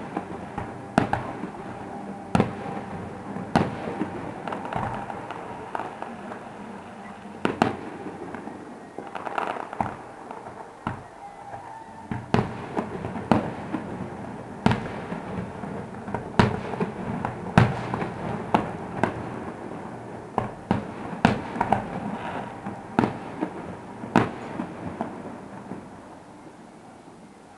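Aerial firework shells bursting in a display, heard from a distance: sharp bangs in irregular succession over a steady rumble. The bangs die away near the end.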